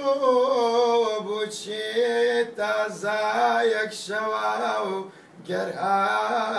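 A man singing solo and unaccompanied, holding long notes in a wavering melodic line, with a short break for breath about five seconds in.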